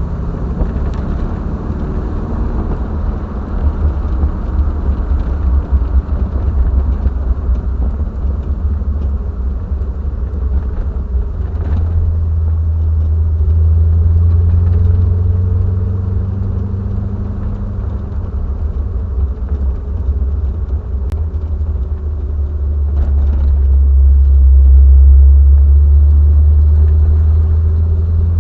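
Triumph TR7's 4.6-litre V8 engine running on the road with a deep rumble, the engine note rising and falling as it pulls, louder about halfway through and again near the end.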